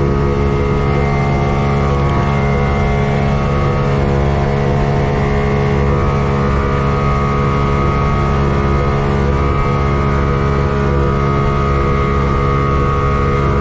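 Boat's outboard motor running steadily under way, a constant engine drone.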